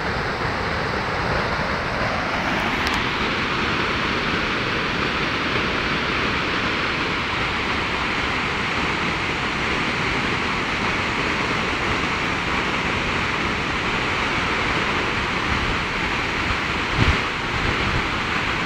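Tall waterfall plunging down a rock face: a steady rush of falling water. There is a brief bump near the end.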